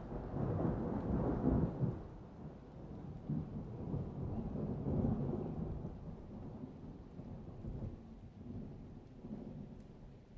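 Rolling thunder: a low rumble that builds at the start, swells again about five seconds in, then slowly fades away.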